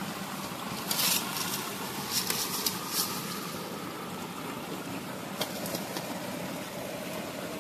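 Handfuls of small live fish and paddy debris being tipped from a steel bowl onto a mosquito net, with brief rustling and clattering about a second in and again around two to three seconds in, over a steady rushing background.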